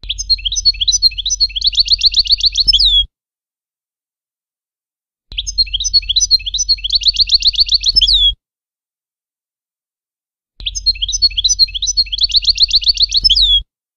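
European goldfinch song in the Levantine ('Shami') style: a phrase of quick chattering notes that ends in a fast trill and a falling note, about three seconds long. The identical phrase plays three times with dead silence of about two seconds between, a looped tutoring recording for young goldfinches to learn from. A low hum from the recording sits under each phrase.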